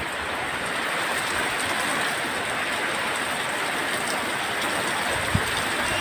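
Heavy rain pouring down in strong wind, a steady even rush of falling water. A brief low thump about five seconds in.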